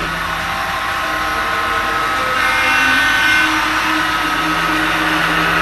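HO-scale Athearn Genesis MP15AC model locomotive's DCC sound decoder playing its diesel switcher engine sound through the model's small speaker, mixed with the running of the model on the track. It grows louder as the locomotive comes closer.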